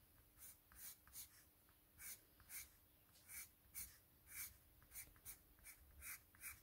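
Faint scratching of a Spectrum Noir coloured pencil stroking across 300gsm white card, about two short strokes a second, as colour is layered on lightly.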